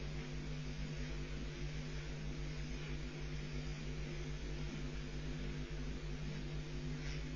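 Steady electrical hum with a constant hiss: the background noise of a nest webcam's audio feed.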